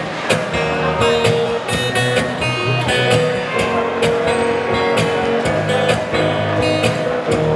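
Strummed guitar playing a song intro in a steady rhythm of repeated chord strokes over sustained notes.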